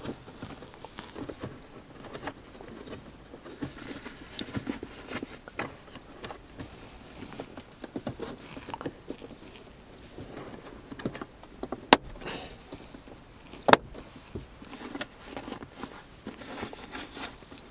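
Hands fitting the shift boot and interior trim back around the gear shifter: light irregular rustling and tapping, with two sharp clicks about two-thirds of the way through.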